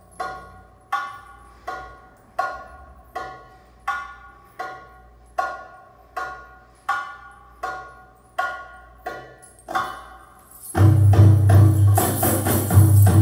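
Belly dance drum solo music. Slow single drum strokes ring out evenly, about one every three-quarters of a second. About eleven seconds in, a loud, dense drum rhythm with a deep bass beat and jingling takes over.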